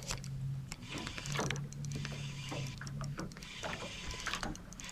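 Fishing reel being wound in while playing a hooked bass: a whirring hum that starts and stops as the handle is cranked, with scattered small clicks.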